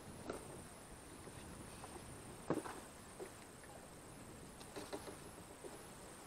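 Faint clicks and small knocks from handling a caught river prawn with pliers, the loudest knock about two and a half seconds in, over a steady faint background hiss.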